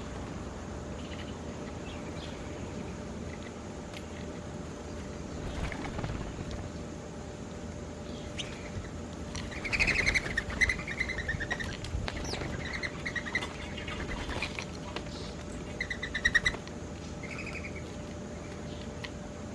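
Birds chirping in short bursts of calls, loudest about halfway through and again briefly near the end, over a steady low background rumble.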